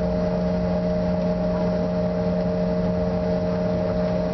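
Cabin noise aboard a Bombardier CRJ-700 taxiing: the rear-mounted GE CF34 turbofans hum steadily, with a few constant tones over a low rumble.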